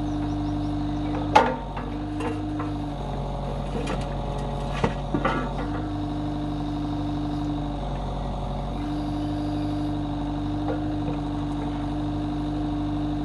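Avant 650i compact loader's diesel engine running steadily under hydraulic load while its backhoe attachment digs soil, with a steady hum that drops out and returns several times as the controls are worked. A sharp clank about a second in and a few lighter knocks around five seconds from the bucket and linkage.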